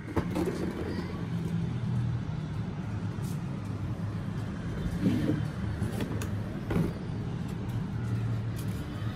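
A cardboard box being handled and opened, with a few short knocks and rustles, over a steady low rumble like distant traffic.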